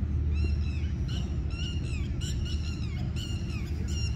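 Birds calling in a quick run of short, arching chirps, about three a second, over a steady low rumble.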